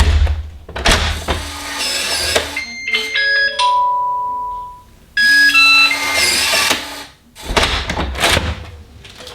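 Yale Conexis L1 smart lock sounding its electronic beep tunes as it is worked from outside: two runs of short stepped tones, the first ending in one held tone. Thuds from the door and lock near the start and again near the end.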